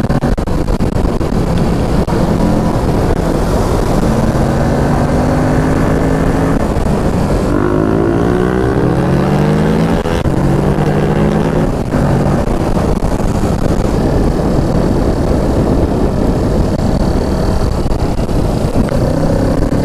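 A Kawasaki Ninja 650's parallel-twin engine running at road speed, with heavy wind rush on the microphone. About eight seconds in, the engine note climbs for a couple of seconds as the bike accelerates, then drops back to a lower pitch.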